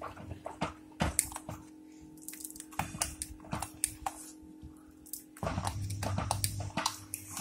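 A metal spoon scraping and clicking irregularly against an aluminium pressure-cooker pot while stirring a thick, bubbling mix of rice, brown cowpeas and jaggery being cooked down. A steady low hum runs underneath and grows louder for about a second and a half past the middle.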